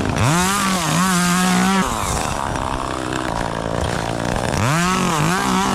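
Chainsaw revved up twice, about four seconds apart, each time held at full throttle for over a second with small dips in pitch, and idling in between.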